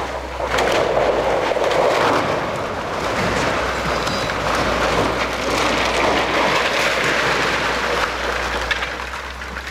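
Stone walls of an old mill tower collapsing during demolition: a long crashing rush of falling masonry and rubble with many sharp impacts inside it. It starts about half a second in and slowly eases off toward the end.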